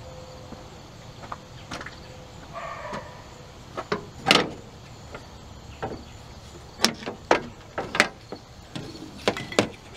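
Rubber hood-to-cowl weatherstrip being pulled off a Dodge Dakota's cowl by hand, its plastic retaining clips popping out in a run of sharp snaps and clicks. The loudest snap comes about four seconds in, and several more follow close together near the end.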